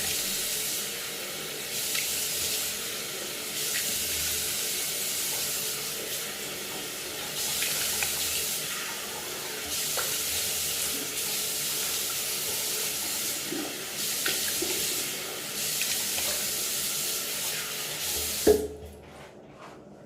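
Water running from a tap into a sink, splashing unevenly as a face is washed in it. About eighteen seconds in there is a sharp knock and the running water stops.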